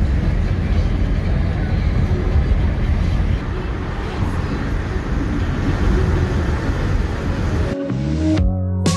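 Steady low rumbling vehicle noise. Music cuts in suddenly near the end.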